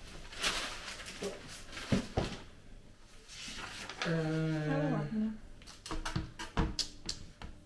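Unpacking noises: paper rustling and several sharp knocks and clicks as a laptop and its packaging are handled on a glass table. About four seconds in, a person hums a short 'mmm', held level and then dropping in pitch.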